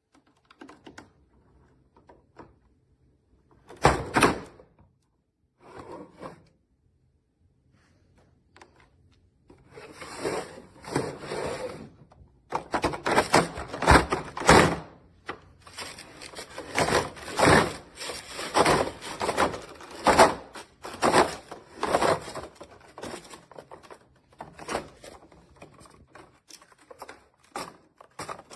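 Hard plastic parts of a two-tier slide-out organizer being handled and fitted together. There are scattered clicks and a sharp knock in the first seconds, then a dense run of clattering and knocks from about ten seconds in.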